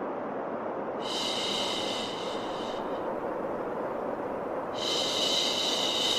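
Baby-soothing white noise: a steady low rushing hiss, with a long 'shhh' shushing sound laid over it twice, each lasting about two seconds.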